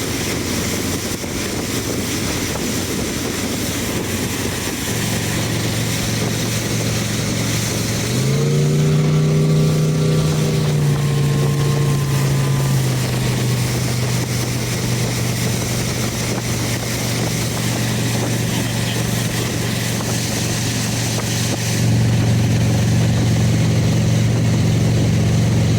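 1995 MerCruiser 350 (5.7 L) small-block V8 sterndrive engine running steadily through Corsa marine exhaust diverters. About eight seconds in it is revved, the pitch rising and holding for a few seconds before dropping back to idle, and the exhaust gets louder in steps, once early on and again about 22 seconds in.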